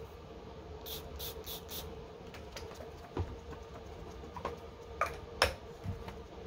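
Pink Obsess perfume spray bottle pumped four quick times in a row, short hissing mists onto a scent card. It is followed by a few sharp clicks and knocks of bottles or cards being handled, the loudest near the end.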